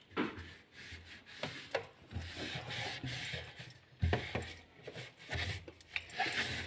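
Light knocks, clicks and rubbing as fridge parts and items are handled and wiped with a cloth inside a refrigerator, in irregular bursts.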